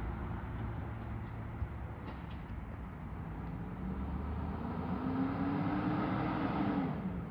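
Garbage truck engine running, its revs climbing from about four seconds in and falling back sharply near the end.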